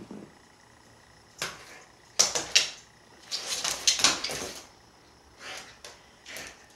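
Siberian husky's claws and paws scrabbling and tapping on a hardwood floor as it pounces, in bursts of quick clicks and scrapes, busiest from about two to four and a half seconds in.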